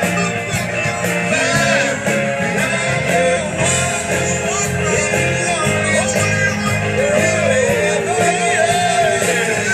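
Live rock band playing through a PA system, heard from the crowd: a steady drum and bass groove under a lead melody that bends and wavers, most active near the end.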